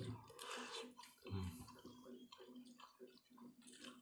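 Faint, irregular clicks and mouth noises of chewing rice and chicken eaten with a spoon, over a faint steady hum.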